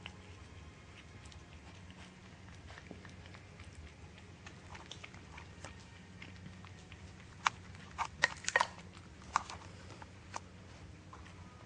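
A cat eating wet food from a small cup, giving small chewing and lip-smacking clicks, with a cluster of louder sharp clicks about seven to nine seconds in. A steady low hum runs underneath.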